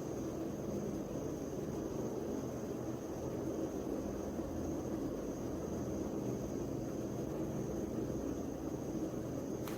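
Steady background hum and hiss, with a faint high whine held throughout and a single click near the end.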